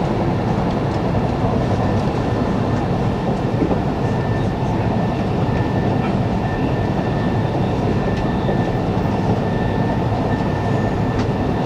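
Tohoku Shinkansen 'Hayate' train running, heard inside the passenger cabin: a steady rumble of wheels on rail with a thin, steady whine above it and a few faint clicks.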